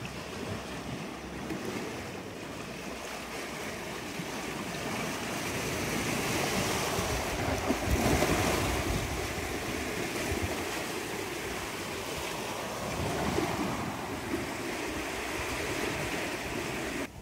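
Small sea waves washing over the concrete apron at the foot of a seawall and running back, the surf swelling loudest about halfway through. Wind buffets the microphone.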